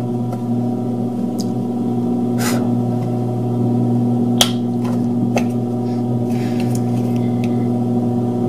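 A low, steady electrical hum that cuts off suddenly at the end, with a few light clicks from a hex key turning a small screw in the truck's chassis.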